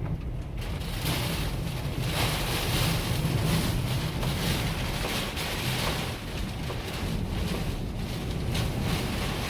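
Strong storm wind gusting and buffeting the microphone: a steady low rumble under a rushing hiss that swells and eases every second or two.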